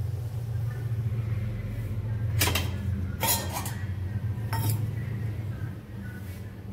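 Steel pots and utensils clinking on a gas stove: three sharp metal clanks about two and a half, three and a half and four and a half seconds in, over a steady low hum.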